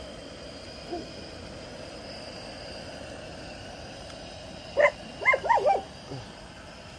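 A dog barking four times in quick succession about five seconds in, over a steady hiss.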